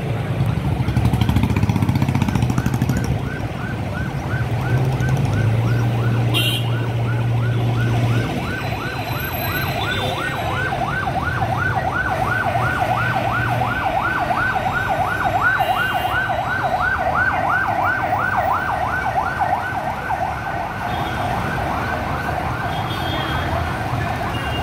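Emergency-vehicle siren sounding a fast, repeating yelp. Heavy engines run low underneath, amid street traffic.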